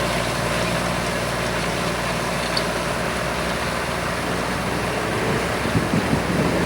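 Tractor engine running steadily under load, pulling a five-furrow reversible plough through the ground. A few brief thumps near the end.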